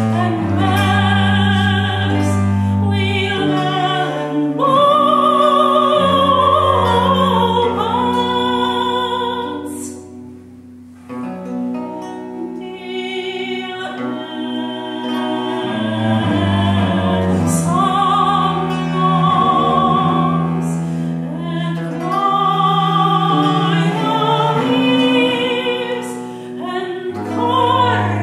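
Female soprano singing a slow early-17th-century English lute song with vibrato, accompanied by a bowed bass viola da gamba and a plucked lute. The music drops to a brief hush about ten seconds in, then resumes.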